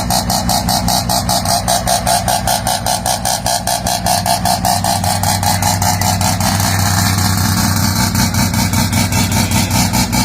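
Mazda RX-7 rotary engine idling with a lumpy, pulsing rhythm of about four to five beats a second. Past the middle the revs rise slightly and the pulsing smooths out for a couple of seconds before the choppy idle returns.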